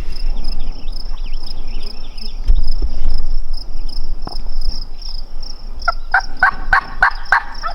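A wild turkey gobbler gobbling once near the end, a quick rattling burst of about eight notes, with a steady high-pitched trill going on throughout.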